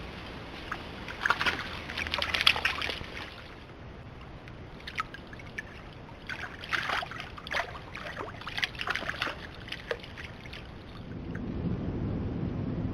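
Splashing and sloshing in shallow creek water, in two clusters of quick irregular splashes, over a steady hiss. A low steady rumble builds near the end.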